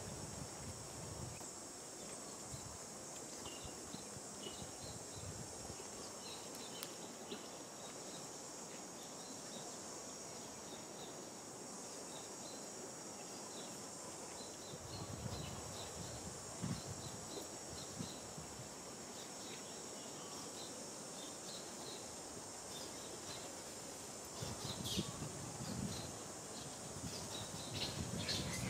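Insects droning steadily in a high, even hiss, with faint short chirps above it and a few low rumbles in the second half, louder near the end.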